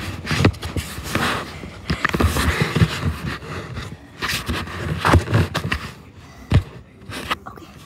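Irregular rustling, scuffing and bumping close to the microphone, with scattered low thumps and a sharp knock about two-thirds of the way through.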